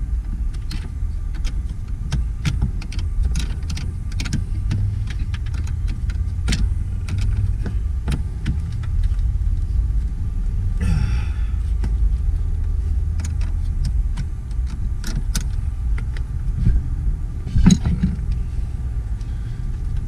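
Scattered metal clicks and clinks of hands and a tool working at a car battery's cable terminals, over a steady low rumble, with a louder knock near the end.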